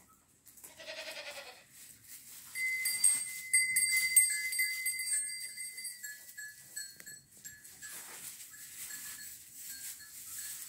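A goat bleats once, about a second in. From about two and a half seconds a high, clear ringing sets in, loudest a little later, and toward the end it breaks into short, evenly spaced pings.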